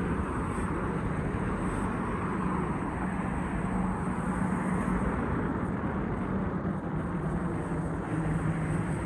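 Steady road traffic noise, with a constant low hum under it.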